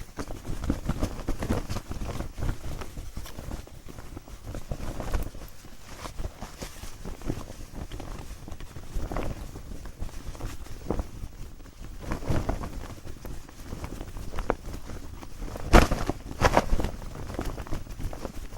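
Clothing fabric rustling and brushing in uneven handled movements, with two louder sharp flaps of cloth near the end.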